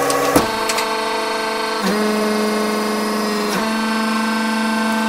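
Hydraulic press pump motor running with a steady, pitched hum. Its pitch sags under load at the start while the hard lollipop candy under the ram cracks sharply a couple of times. The motor's pitch dips briefly twice more later on.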